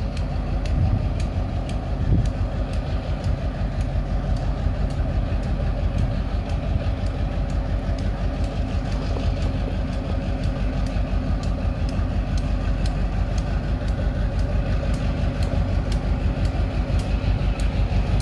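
EMD GP18 diesel locomotive running at low throttle as it pulls a loaded freight train slowly through the yard. A steady run of sharp clicks rides over the engine and comes quicker near the end.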